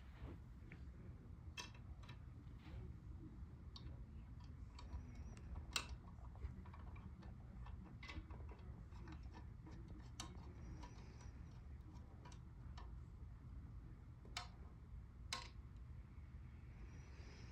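Faint, scattered clicks and small taps, about a dozen spread irregularly, from handling a ceiling-fan blade and its screws while the blade is fitted, over a low steady hum.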